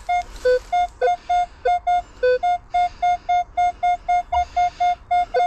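Minelab Equinox 700 metal detector beeping as its coil is swept over a buried target. The beeps are short and come about four a second, mostly on one higher tone with a few lower ones mixed in. The detector is signalling a deeper metal target with a target ID of about 50.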